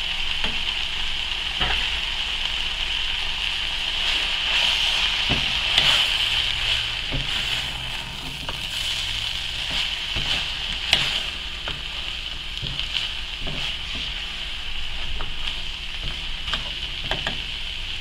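Shredded chicken filling with tomato paste sizzling steadily in an aluminium pot on the hob while it is stirred, with scattered short scrapes and taps of the spoon against the pot.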